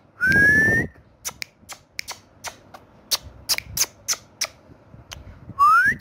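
Indian ringneck parakeet whistling: a short, loud, rising whistle just after the start, then a run of sharp clicks about three a second, then a second whistle sliding upward near the end.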